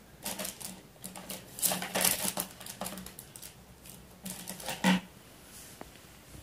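Irregular clicks and rustles of a handheld phone being handled close to its microphone, in clusters, with the loudest knock about five seconds in.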